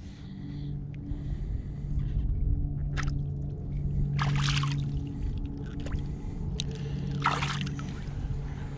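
Shallow water sloshing as a chain pickerel held in lip grippers is swished about and kicks free. Short splashes stand out about three seconds in, around four seconds and near seven seconds, over a steady low hum.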